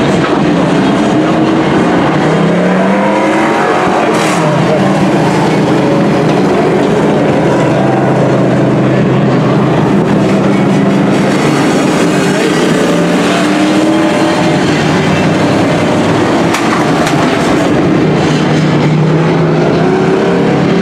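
Several dirt-track race trucks' engines running around the oval at once, their pitch rising and falling as the trucks pass and speed up.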